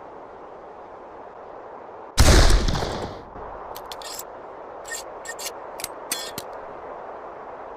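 A single Morgan-James rifle shot about two seconds in, a sharp loud report that rings out for about a second, followed by a run of light clicks. A steady hiss lies underneath.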